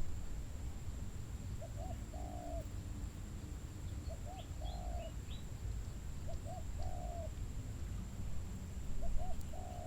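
A bird calling over and over, likely a dove cooing: two short notes then a longer falling note, repeated about every two seconds, with a few faint high chirps in between.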